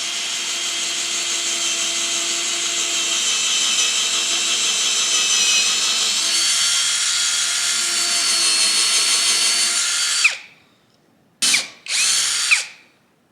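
Seyvum PD-BL10 21-volt cordless drill running steadily for about ten seconds as it drills a hole, its motor whining at an even pitch, then stopping. Two short trigger bursts follow near the end, each spinning up and winding down.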